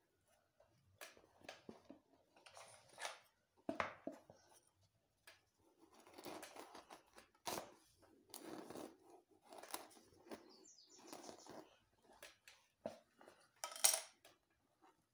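Faint, irregular rustling, scratching and clicking of hair being combed with a plastic comb and handled while braiding cornrows, with the sharpest click near the end.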